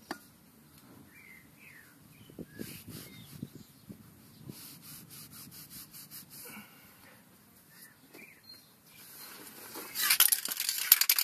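Faint rubbing and handling as a rag wipes out the inside of a tractor transmission housing, with a few bird chirps. About ten seconds in, a much louder spluttering hiss from an aerosol spray can aimed into the housing.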